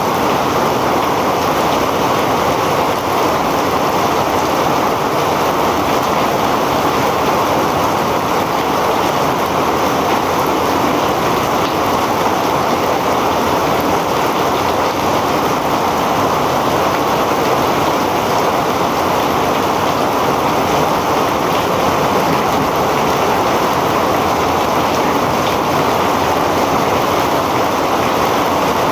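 Heavy rain falling, a loud steady rush that does not change.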